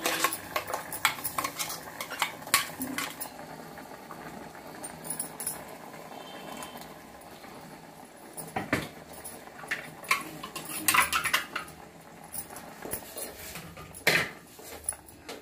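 Steel ladle clinking and scraping against a steel pot as paste is added to a curry and stirred in: a scatter of sharp clinks, busiest in the first few seconds and again about ten to eleven seconds in.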